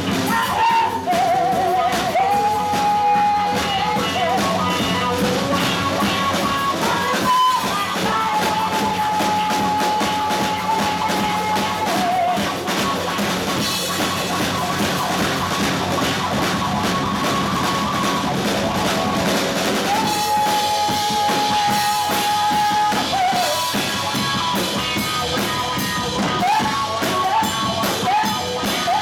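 Live rock band playing: a woman singing over electric guitar, bass guitar and a drum kit, with several long held notes.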